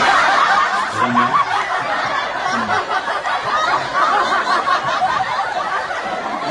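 Several voices laughing and chattering at once, dense and continuous.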